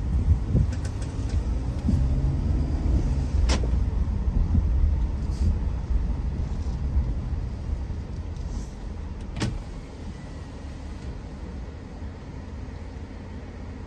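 Low road-and-engine rumble of a car driving through city streets. It eases off after about eight seconds, and two sharp clicks come about three and a half seconds in and again near nine and a half seconds.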